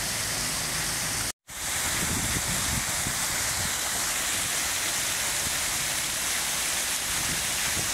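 Fountain water pouring from a raised basin and splashing over bronze figures into a shallow pool: a steady rushing hiss. The sound cuts out completely for an instant about a second and a half in, then resumes.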